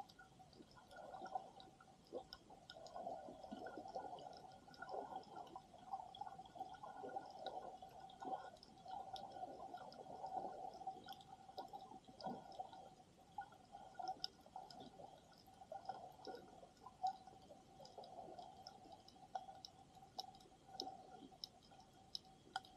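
Faint underwater sound from a submerged camera: muffled water movement with many small scattered clicks and crackles over a steady faint hum.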